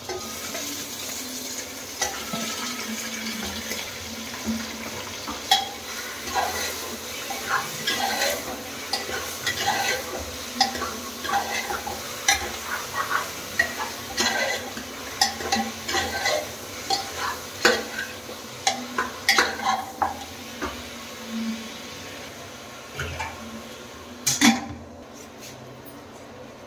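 Raw chicken pieces being stirred into hot onion masala in an aluminium pressure cooker with a metal spatula: repeated scraping and clinking of metal on the pot over a steady sizzle, with one louder clank near the end.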